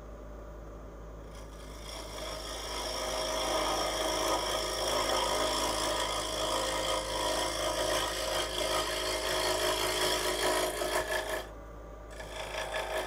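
A gouge making a push cut on spinning wood on the lathe: a steady scraping hiss of the shaving over the low hum of the lathe motor. The cut comes in about two seconds in, stops shortly before the end, then starts again lightly.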